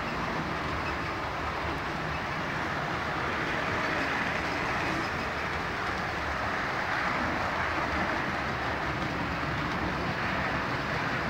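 OO gauge model trains running over the layout's track and pointwork, a steady whir of small electric motors and running wheels.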